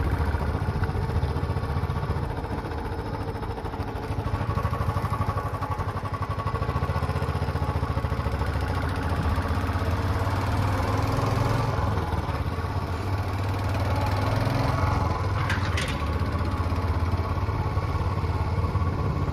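Engine of a moving road vehicle running steadily at travelling speed, with a hiss of road and wind noise. A brief high squeak comes late on.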